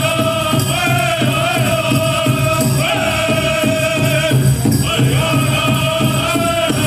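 Powwow drum group: several men singing together in high, gliding unison over a big drum struck in a steady, even beat, accompanying a Prairie Chicken and Grass dance contest song.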